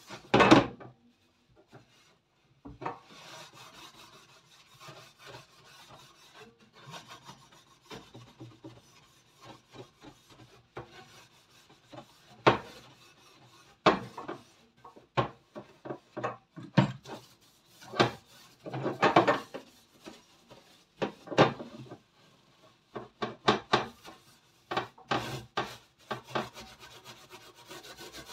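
Wire oven rack being scrubbed with a soap sponge: repeated rasping strokes, broken by sharp clanks of the metal rack knocking against the sink, the loudest about half a second in and many more in the second half.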